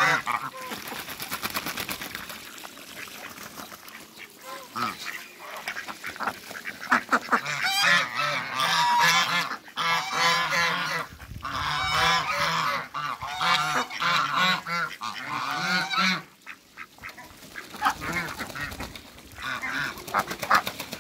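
Mixed flock of domestic geese and ducks calling: repeated goose honks with duck quacks among them. A loud burst of calls comes at the start, the calling turns dense for several seconds in the middle, eases off briefly and picks up again near the end.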